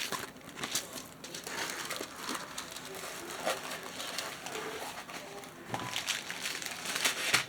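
Soft, irregular crinkling and rustling of a diamond painting kit's packaging being handled, with scattered small clicks.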